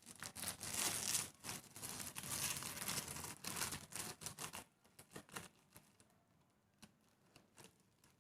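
Packaging of a Jenga set being handled and opened: crinkling and rustling for about four and a half seconds, then scattered light clicks.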